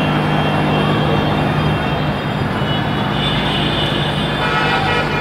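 Helicopter in flight, a steady loud drone of rotor and engine with a thin high whine above it.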